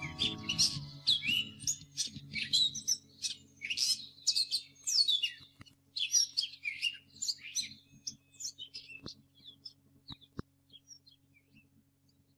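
Birds chirping and trilling in quick overlapping calls, thinning out and fading near the end. A held musical chord dies away within the first second, and a faint low hum stays underneath.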